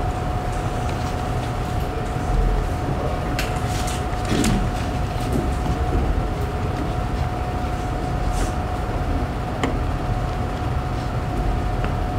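Classroom room noise: a steady rumble and hiss with a constant thin whine, broken by a few faint clicks and knocks.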